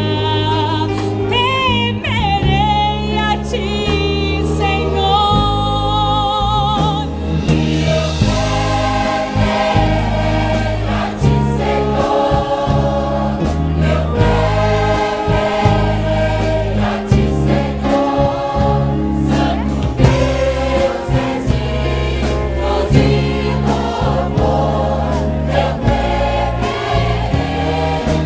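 Choir singing with a brass band accompanying, the tuba holding the bass notes. The sound turns fuller and brighter about seven seconds in.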